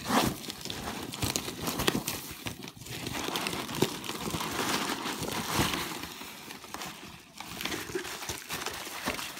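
Shredded paper packing fill and plastic bubble wrap rustling and crinkling, with many small crackles, as hands dig a bubble-wrapped boxed figure out of a cardboard shipping box.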